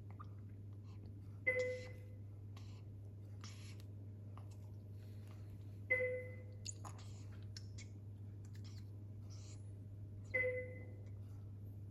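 A medical equipment alarm chimes three times, about four and a half seconds apart. Each chime is a short two-tone ding that fades quickly, over a steady low hum.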